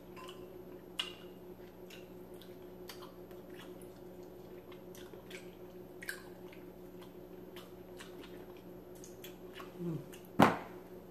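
Mouth and hand sounds of eating rotisserie chicken: wet smacking and small clicks as the meat is pulled apart and chewed, over a faint steady hum. Near the end there is one sharp, loud knock.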